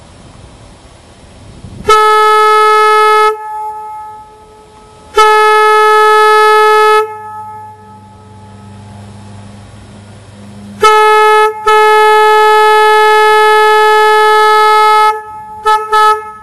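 Railroad-type air horn blown on compressed air, sounding one steady, high note in abrupt on-off blasts: three long blasts of one to three and a half seconds, the last the longest, then two quick toots near the end.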